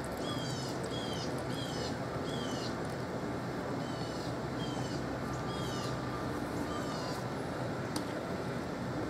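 A bird calling repeatedly: about eight short calls, each falling in pitch, over a steady background hum. A single sharp click comes near the end.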